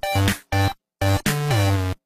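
Background music: an electronic track of short pitched phrases that cut off abruptly, with brief silences between them.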